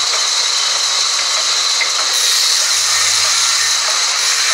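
Vertical band saw cutting lengthwise through a log slab: a steady, loud hiss of the blade in the wood, growing brighter about two seconds in.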